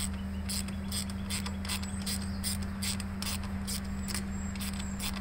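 Ratchet wrench clicking as it is swung back and forth to loosen a bolt on a small engine's air cleaner housing and carburetor, about two to three clicks a second, over a steady low hum.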